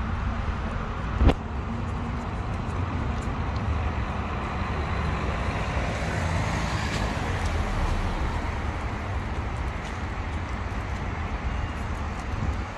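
Steady road traffic noise, swelling a little in the middle as a vehicle passes, with one short knock about a second in.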